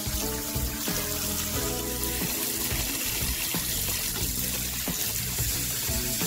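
Kitchen tap water pouring in a thin stream onto cucumbers and tomatoes in a plastic bowl in a sink, a steady splashing hiss, with background music playing.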